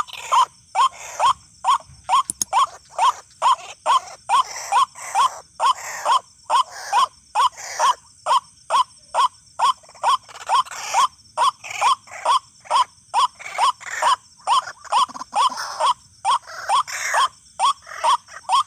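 White-breasted waterhen calls: a harsh "ruak" note repeated about two and a half times a second without a break, each note rising slightly in pitch.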